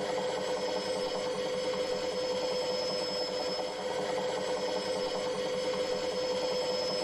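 Vertical frame saw (gang saw) from 1936 running with a fast, even reciprocating rhythm and a steady hum, unchanged throughout.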